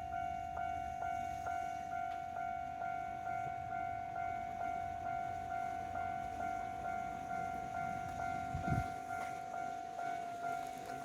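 Railroad crossing warning bell ringing steadily at about two strikes a second over the low rumble of a passing train, with one brief low thump about eight seconds in.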